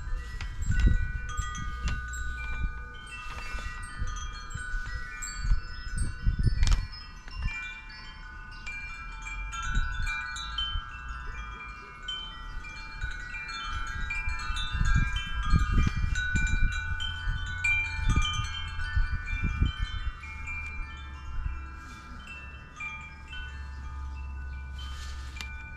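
Wind chimes ringing in an irregular, overlapping jumble of high notes, with gusts of wind rumbling on the microphone.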